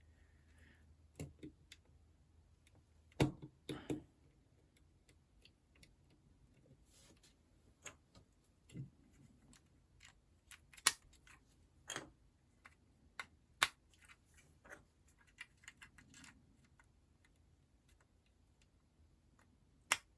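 Scattered sharp plastic clicks and taps of Oxford building blocks being handled and pressed together, at irregular intervals with quiet stretches between.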